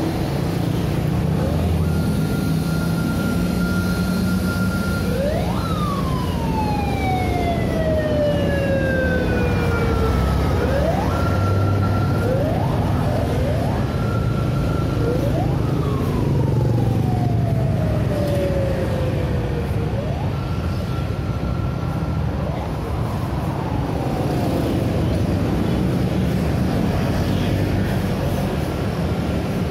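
Steady traffic of motorcycles and cars passing, with a siren sounding over it several times: a tone that sweeps up quickly, holds, then slowly falls away in long downward wails. The siren starts about two seconds in and fades out after about twenty-three seconds.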